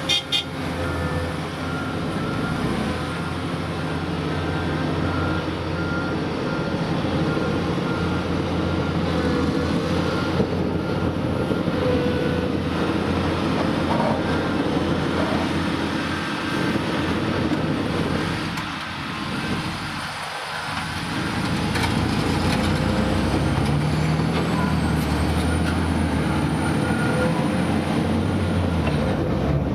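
Heavy diesel engines of a large hydraulic mining excavator and an off-highway dump truck running steadily under work. A faint beep repeats evenly through roughly the first half, and the engine note rises and swells near the end.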